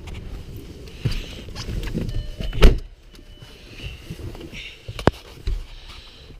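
Knocks and thumps of handling a car that will not start. The loudest is a heavy thud a little under three seconds in, with a sharp click near five seconds and a few softer thumps between.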